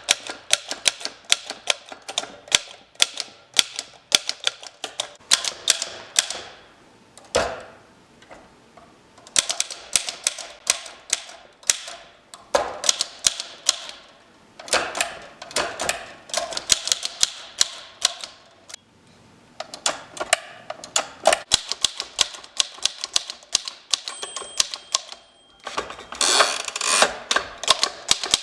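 1915 French Typo manual typewriter being typed on, its keys clacking in quick runs broken by short pauses, with one heavier knock about seven seconds in.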